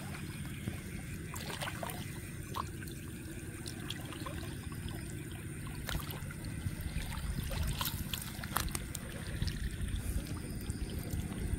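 Shallow water sloshing and trickling as hands grope through it for a fish, with small scattered splashes.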